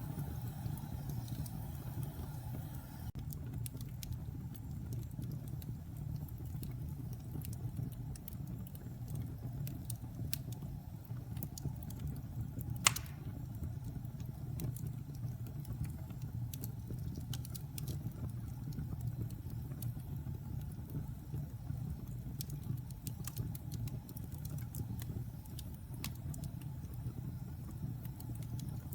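Wood fire crackling: a steady low rumble of burning with scattered sharp pops and snaps, and one louder pop about halfway through.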